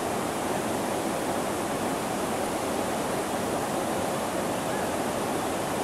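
Whitewater rapids rushing in a steady, unbroken roar of water.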